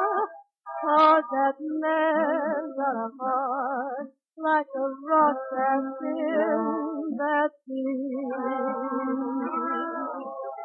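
Music from a 1943 V-Disc record playing on a turntable: a melody with wide vibrato over a steady lower accompaniment, phrased with brief pauses. The uploader finds the recording's sound badly out of balance.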